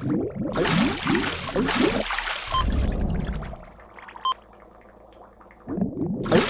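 Cartoon underwater bubbling sound effect: a run of quick rising bubble blips, then a low thud with a short ping. After a quieter stretch with a second ping, the bubbling starts again near the end.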